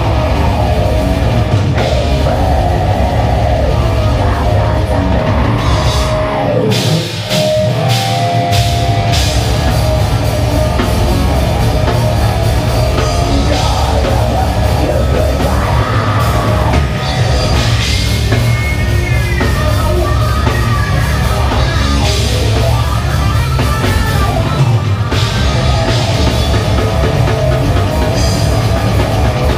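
Death metal band playing live through a club PA: heavily distorted electric guitars, bass guitar and fast drumming on a full kit, loud and dense. About seven seconds in, the drums and bass drop out for a couple of seconds under a single ringing guitar line before the full band crashes back in.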